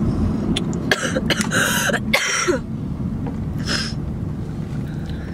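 A woman coughing with a cold: a quick run of several coughs between about one and two and a half seconds in, then one more a second later. The steady road rumble of the moving car's cabin runs underneath.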